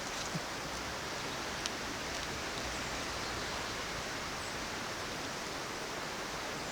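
Steady rush of a mountain river's flowing water, with a faint click or two in the first couple of seconds.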